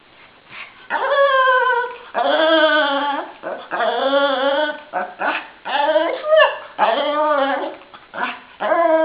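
Shih tzu 'talking': a string of about six drawn-out whining calls, each about a second long and wavering in pitch, starting about a second in.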